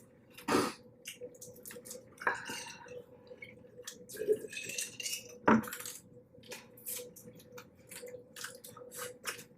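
Close-up eating sounds of a blue crab boil: scattered sharp clicks and cracks of crab shell being broken and picked apart, with wet squelches and a few louder crackles. A faint steady hum runs underneath.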